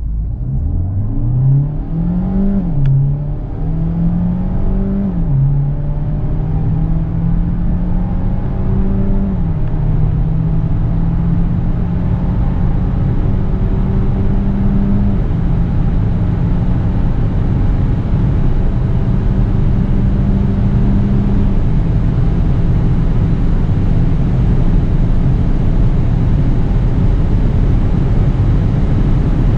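Peugeot 508 plug-in hybrid's 1.6-litre turbocharged four-cylinder petrol engine at full throttle from a standstill, heard from inside the cabin. The engine note climbs and drops back at each upshift of the 8-speed automatic, about five times as the car runs up through the gears, while road and wind noise builds with speed.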